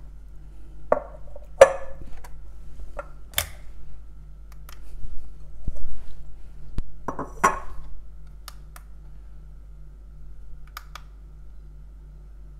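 Ceramic bowl knocking and clinking against a granite countertop and being handled as a fresh cheese is turned out of it. There are several sharp knocks in the first half, then a few lighter clicks.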